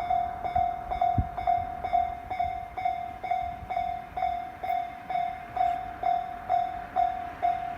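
Japanese railway level-crossing warning bell ringing in an even, repeating 'kan-kan' rhythm of about two strokes a second, each stroke the same single pitch: the crossing is signalling that a train is approaching.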